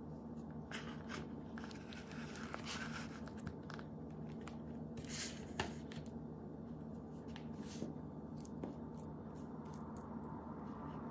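Kitchen handling noises as food is dished onto a plate: soft scrapes, rustles and light clicks over a steady low hum, with one sharp click about five and a half seconds in.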